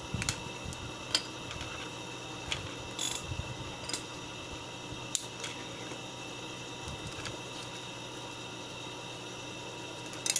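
Scattered small clicks and taps from handling an opened headset's plastic parts and wiring, over a steady background hum.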